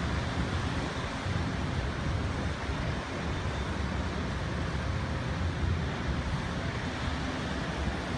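Steady low rumble of motor yachts' engines and their wake passing on the canal, mixed with wind buffeting the microphone.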